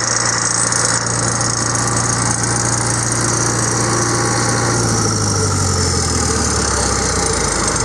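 Caterpillar 3304 DI turbocharged four-cylinder diesel on a generator set, running steadily. About five seconds in, it slows and its pitch drops in steps.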